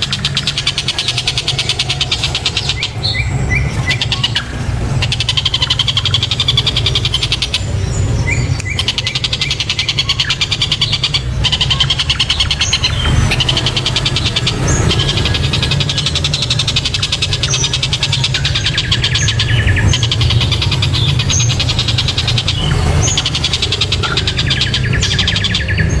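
Tengkek buto (Javan kingfisher) calling in long runs of fast repeated high notes, broken by short pauses, over a steady low hum.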